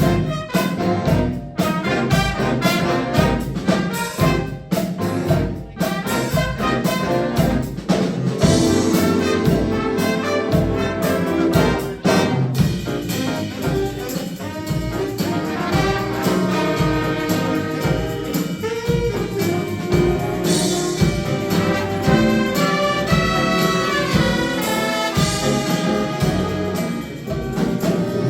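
High school jazz band playing live: a horn section over drum kit. There are many sharp drum hits in the first few seconds, then held brass chords.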